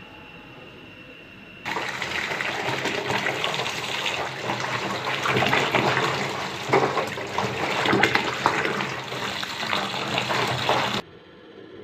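Tap water running hard into a pot of boiled eggplants, splashing as a hand turns them under the stream. It starts abruptly a couple of seconds in and cuts off suddenly near the end.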